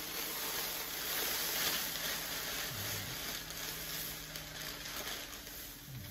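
Dry breakfast cereal being poured into a plastic storage container, a continuous hiss of falling pieces that is loudest in the first two seconds.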